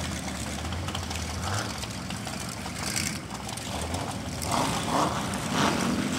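Lifted Chevrolet pickup truck's engine running with a steady low hum as the truck drives slowly away.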